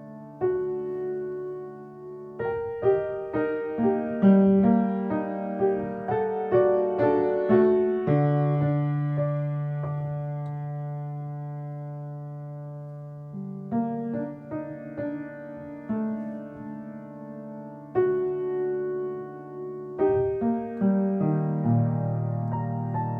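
Slow piano music: single notes and chords struck and left to ring out and fade, over long held low notes, with a quieter stretch in the middle where one low note sustains.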